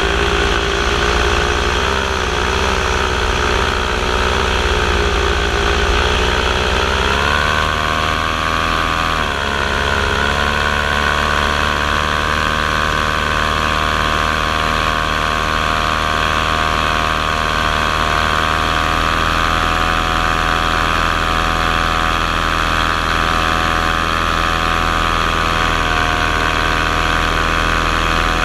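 Motor and propeller of a radio-controlled model aircraft in flight: a steady whine with several pitches. The pitch rises about seven seconds in as the throttle opens, dips briefly a couple of seconds later, then holds steady.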